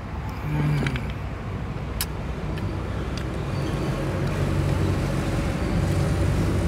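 Steady low rumble of a motor vehicle engine running, with a few light clicks and one sharp click about two seconds in.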